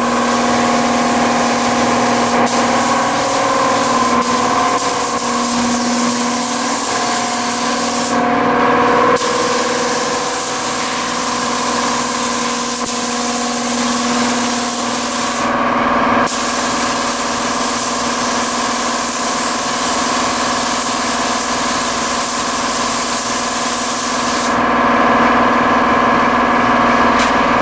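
Air-fed paint spray gun hissing steadily as silver paint goes onto a car body, cutting out briefly three times as the trigger is let off, over a steady machine hum.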